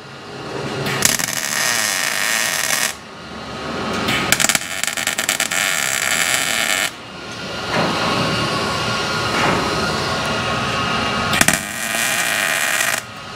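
Welder laying plug welds in sheet metal on a 1968 Camaro's quarter panel: three bursts of steady arc crackle, each a few seconds long, starting and stopping sharply.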